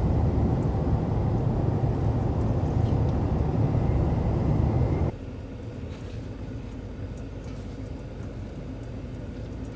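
A motor vehicle driving: a loud, steady low engine and road rumble that cuts off sharply about five seconds in to a quieter steady hum.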